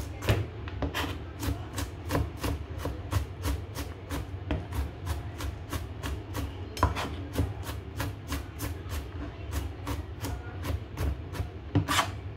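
Kitchen knife chopping garlic on a plastic cutting board: an even run of sharp knocks, about three a second, with one louder knock near the end.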